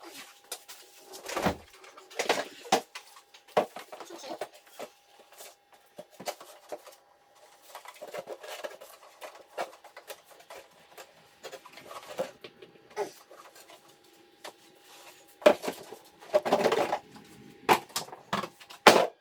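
Irregular knocks, clicks, scrapes and rattles of tools and plastic and metal intake parts being handled during hand work on a 6.0 Powerstroke's air intake, with a faint steady tone underneath. The loudest clatter comes near the end.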